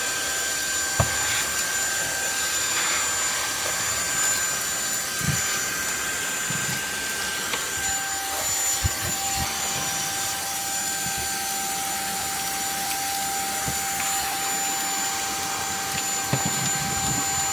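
600 W cordless stick vacuum cleaner running steadily, a hiss of air with a high whine; a second, lower whine joins about eight seconds in. A few light knocks sound over it.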